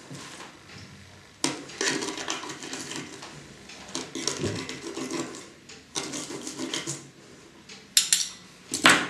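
Fork and knife scraping and clinking against a plate in three bouts of scraping, then two sharp clinks near the end.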